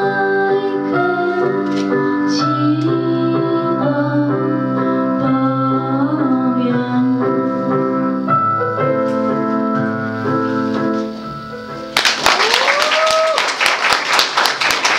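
The end of a song: a female voice singing over piano accompaniment, with the last notes dying away. About twelve seconds in, an audience bursts into applause, with one rising cheer over the clapping.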